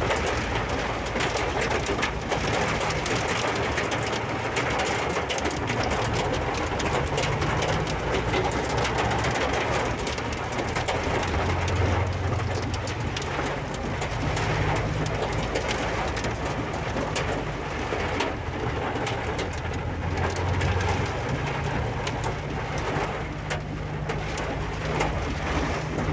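Heavy rain and hail drumming on the roof and windshield of a Ford Ranger pickup, heard from inside the cab as a dense, steady clatter of countless small hits. A low steady hum runs underneath.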